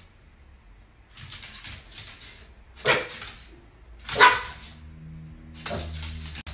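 A small dog barking: two loud, sharp barks about a second and a half apart in the middle, with softer, rougher sounds before them and near the end.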